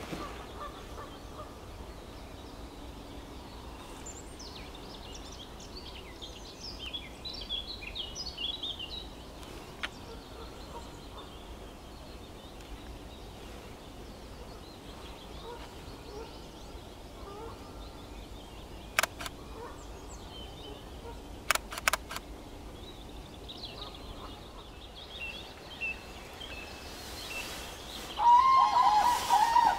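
Common crane calling loudly near the end, a run of repeated calls with a wavering pitch. Earlier there is faint, higher bird song, and a few sharp clicks about two-thirds of the way through.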